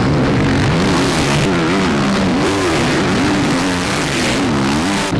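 Motocross bikes racing on track, their engines revving up and down again and again as they go round.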